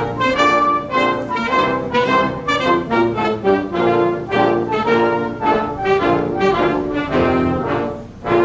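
Brass band playing a slow, stately piece, with full trumpet and trombone chords changing on a steady measured beat.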